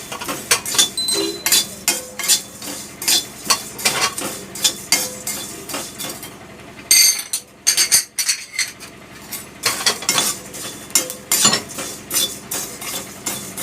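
A metal utensil scraping and clinking against a kadai as dry spices are stirred while they roast, in quick, irregular strokes about two a second, with a short lull just past the middle.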